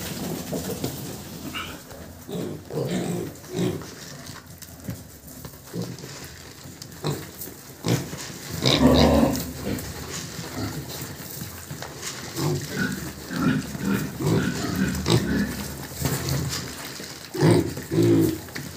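A group of young pigs grunting as they feed on grain scattered on the pen floor, in irregular short grunts with one louder call about halfway through.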